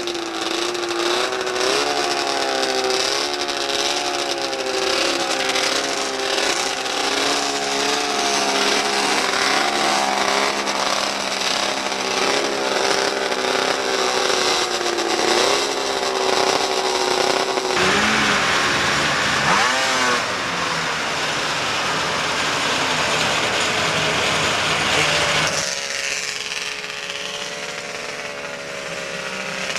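Vintage two-stroke snowmobile engines running and revving unevenly at a drag race, their pitch wavering up and down. About eighteen seconds in the sound changes abruptly to a harsher, noisier engine sound with a brief rising rev, then wavering engine revs again near the end.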